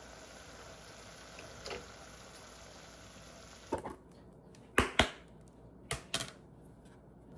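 A faint steady hiss, then a handful of short sharp clicks and knocks, the loudest about five seconds in.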